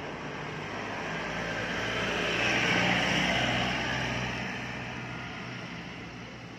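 A passing vehicle: engine noise swells to a peak about three seconds in, then fades away.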